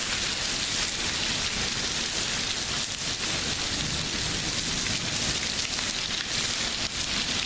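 Heavy thunderstorm rain falling steadily, a constant hiss of downpour on the ground and surfaces.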